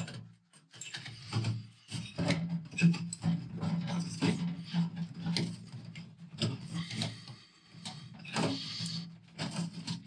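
Flexible metal exhaust pipe of a camper heater being bent round by hand and worked toward its connection, giving irregular crinkling, scraping and light knocks.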